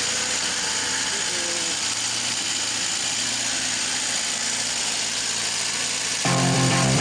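Moskvich M-412 four-cylinder petrol engine running steadily just after its first start following a cylinder-head rebuild with lapped valves. Music cuts in suddenly near the end.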